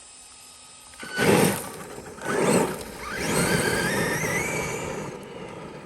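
Traxxas E-Revo RC truck's electric motor and drivetrain under throttle. Two short bursts of power with the tyres churning, then a longer run with a motor whine rising steadily in pitch as the truck speeds up, fading near the end.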